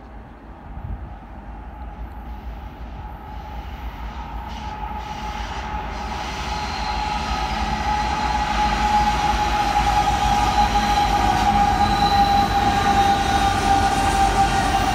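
Union Pacific freight train led by several diesel locomotives approaching and passing close by, growing steadily louder until the locomotives are alongside. A steady high-pitched tone rides over the engine rumble.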